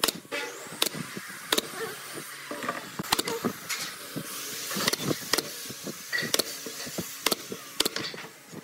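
Pneumatic brad nailer driving nails into pine strips: a dozen or so sharp clacks at uneven intervals.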